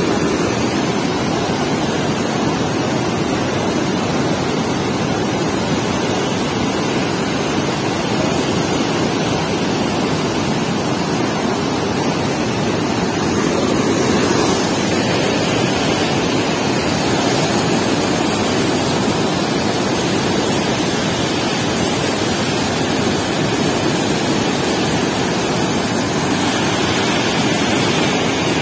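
Muddy floodwater pouring through the open sluice gates of a river barrage and churning in the basin below: a steady, loud rush of water.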